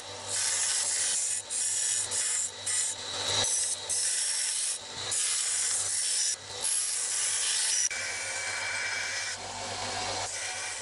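Small belt sander running with a low motor hum as the flat of a steel knife blade is pressed against the moving belt to grind off rust: a gritty hiss that breaks off about once a second as the blade is lifted and set back. After about eight seconds the grinding runs on more steadily.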